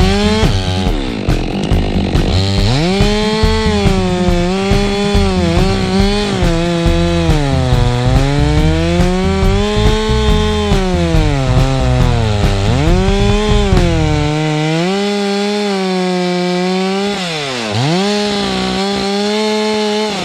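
Gasoline chainsaw running under load, cutting wood. Its engine pitch rises and falls with the throttle and sags steeply twice near the end.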